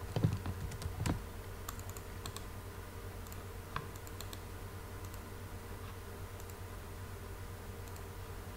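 Computer keyboard keystrokes and mouse clicks. A few louder clicks come in the first second or so, then sparse faint ticks, over a steady low hum.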